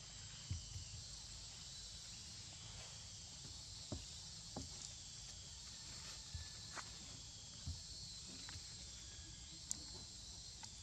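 Steady high insect chorus, with a few faint short taps and knocks scattered through.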